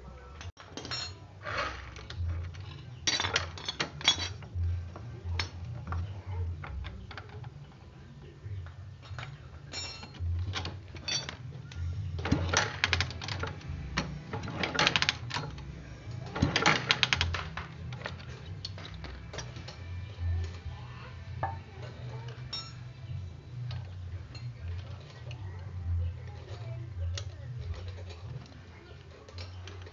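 Hand tools and metal parts clinking and clattering irregularly against the exposed kick-starter and clutch gears of a Kawasaki Blitz motorcycle engine during repair of a slipping kick-starter, over a steady low hum.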